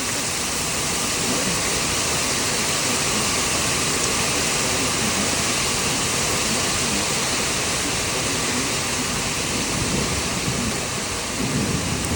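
Heavy rain falling steadily during a thunderstorm, an even rushing hiss.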